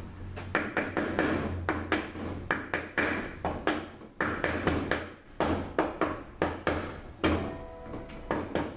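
Repeated sharp metal knocks and clatter, irregular at about two or three a second, as the center support of a ZF5HP24 automatic transmission is worked out of the case; one knock near the end leaves a brief metallic ring.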